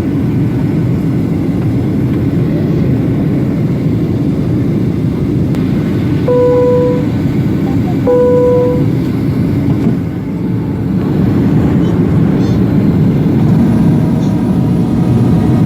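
Steady rumble of a Boeing 737-800 in flight, heard from the cabin. Two single chime tones sound a little under two seconds apart, about six and eight seconds in.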